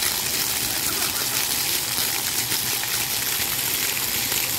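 Splash-pad fountain jets spraying up from floor nozzles and splattering back onto wet concrete: a steady hiss of water.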